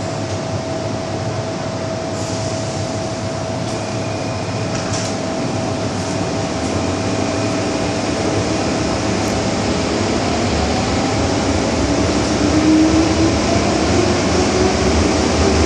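MTR M-Train electric multiple unit heard from inside the carriage, gathering speed: a steady rumble of wheels and running gear that grows gradually louder, with a motor whine rising in pitch over the last few seconds.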